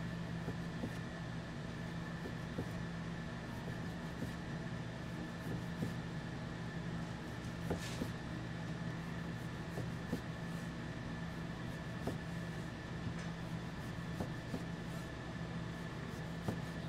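Restaurant kitchen background: a steady machine hum with a faint high whine, under scattered light clicks and taps.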